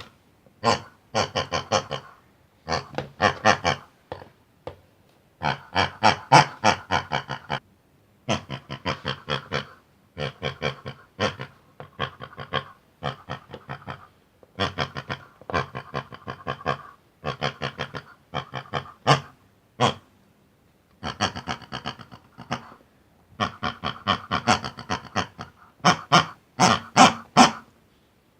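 Pig grunting and oinking in rapid runs of short grunts, each run lasting a second or two, with brief pauses between them.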